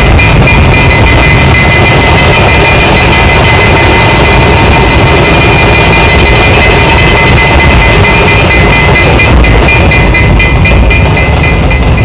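Dhol-tasha troupe playing: many large dhol barrel drums and small tasha drums beating a fast, dense rhythm with brass cymbals ringing over it. The drumming is so loud it overloads the recording and sounds distorted.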